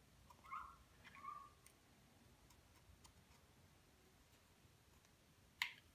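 Mostly near silence, with a few faint ticks and small clicks from hand work on the oil filter element's small rubber O-ring, and one sharper click shortly before the end.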